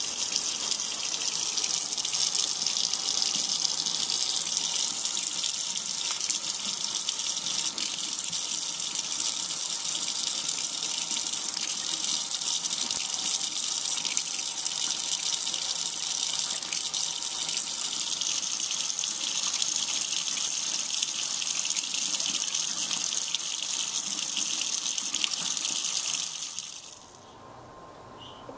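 Kitchen tap running steadily into a stainless steel sink, the stream splashing over a red-eared slider turtle held under it; the water sound cuts off near the end.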